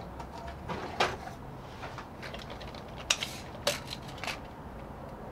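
A tape measure being handled and its blade pulled out: a few short, sharp clicks and knocks spread over several seconds, the loudest about three seconds in.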